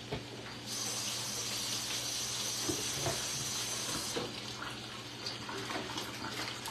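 Kitchen sink tap running into the basin for about three and a half seconds, then shut off, leaving a few small knocks of things handled in the sink.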